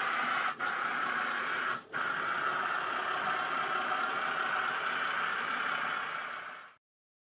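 N gauge model train running along the track, a steady whirring rumble with two brief dips about half a second and two seconds in, fading away near the end before cutting off.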